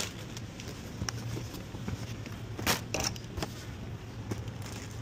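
Supermarket background: a steady low hum with a few sharp clicks and rustles of packaged goods being handled, the loudest a little under three seconds in.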